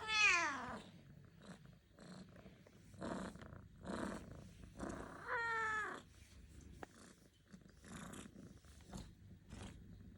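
Cat purring while being petted, with two meows: a falling one at the start, which is the loudest sound, and a shorter, steadier one about five seconds in. Short breathy or rustling noises come between them.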